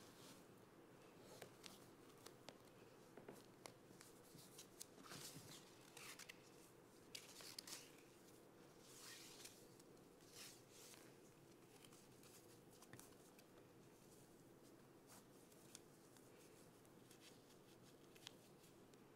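Faint rustling and swishing of satin pointe-shoe ribbons being wrapped around the ankle and tied, with small ticks of handling, busiest in the first half, over quiet room tone.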